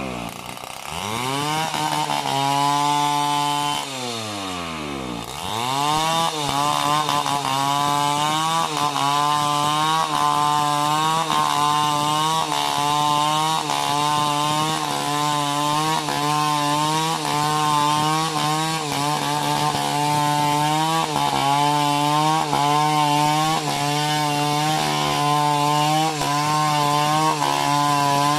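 Chainsaw running hard while cutting coconut-tree wood. Its engine note drops right at the start and again about five seconds in, then holds at high revs, wavering up and down as the chain bites into the trunk under load.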